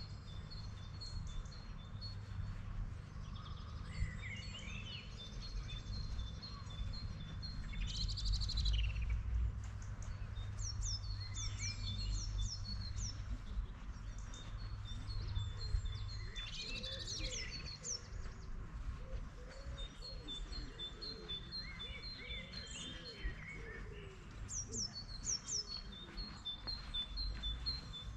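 Songbirds singing: runs of quick, high, falling whistles and rows of short, evenly spaced notes, over a steady low rumble.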